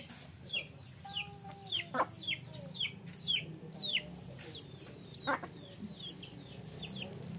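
A chick peeping over and over, short high peeps that fall in pitch, about two a second, while a hen clucks low now and then.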